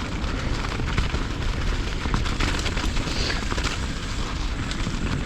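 Wind buffeting the microphone of a mountain bike in motion, over a steady low rumble, with frequent small clicks and rattles from the bike and tyres running over a dirt trail.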